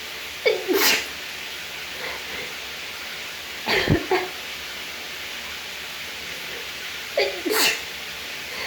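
A woman sneezing three times, about three seconds apart: allergy sneezes.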